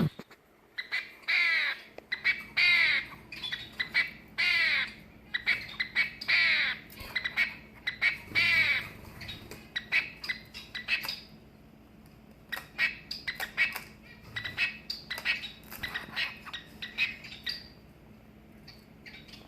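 Male long-tailed finch (shafttail finch) making its loud crow-like courtship call: about five falling squawks, one every second and a half or so, followed by a run of short, sharp notes.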